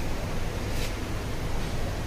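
Steady low rumbling noise with a short rustle a little under a second in.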